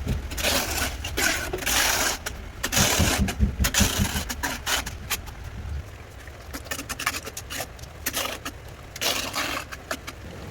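Scraping and knocking of hand tools during wall-tiling work: several long rasping strokes, the longest in the first four seconds and one more near the end, among scattered clicks and taps.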